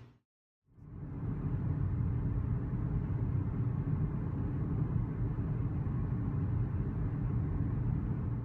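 Steady low rumble of a moving road vehicle, fading in just under a second in after a short dead gap.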